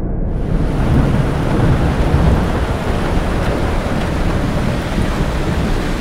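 Heavy rain pouring with a low rumble of thunder rolling through it, the rumble strongest about one to two seconds in.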